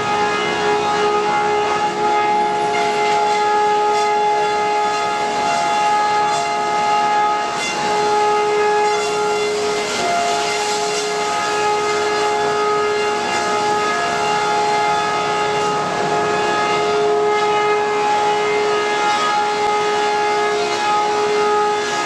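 Sawmill machinery running with a steady high whine that drops out and comes back now and then, over a constant mechanical din.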